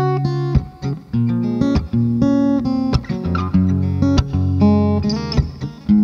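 SQOE A-830C mahogany acoustic-electric guitar with a solid top, played fingerstyle: plucked chords and single notes ringing over held bass notes.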